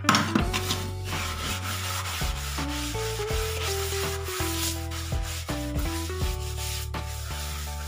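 A scrub pad rubbing over a wet, soapy kitchen sink basin with quick scrubbing strokes. A simple background melody with steady held notes plays under it.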